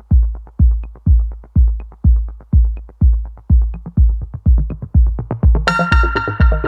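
Electronic background music: a steady four-on-the-floor kick drum at about two beats a second, joined near the end by a bright synthesizer chord.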